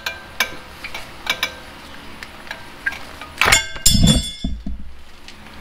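Flathead screwdriver prying at a front brake caliper's metal retaining clip, with scattered light metal clicks. About three and a half seconds in, the clip gives way abruptly with a loud metallic clink, ringing and a dull thud, coming off less cleanly than usual.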